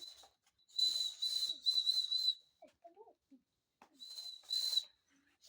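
A whistle blown in short, shrill blasts on one steady high pitch: three in quick succession about a second in, the last with a slight flutter, then two more about four seconds in.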